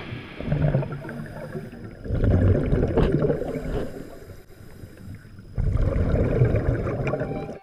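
A diver breathing underwater: exhaled air bubbling out in three rumbling bursts of a second or more each, with quieter stretches between.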